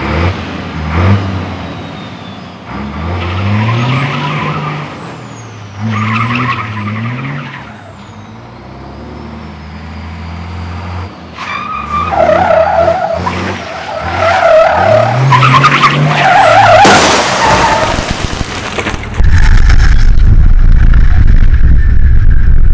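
1100 bhp racing semi-truck's diesel engine revving up and down again and again as it drifts, its tyres squealing for several seconds. Near the end comes a loud, deep crash as the truck smashes through a glass panel.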